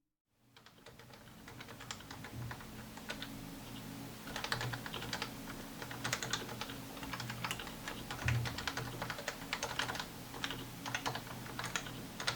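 Typing on a Realforce 87U keyboard with 55 g Topre switches, unlubed and without O-rings: a fast, dense run of keystrokes that fades in after a brief silent gap, with a couple of deeper thuds among them.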